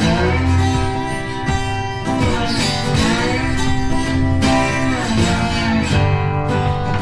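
Background music led by guitar, with sliding pitched lines over a steady bass.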